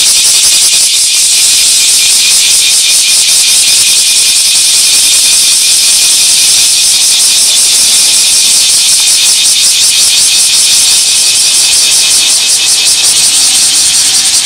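Loud chorus of cicadas: a dense, high-pitched buzz with a fast, even pulsing.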